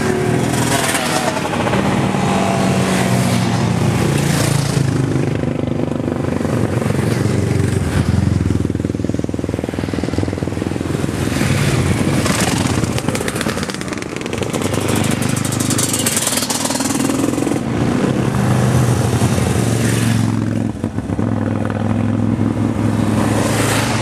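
Racing motorcycles climbing a hill-climb course one after another, engines revving hard and passing close, the engine note rising and falling as each bike comes up and goes by.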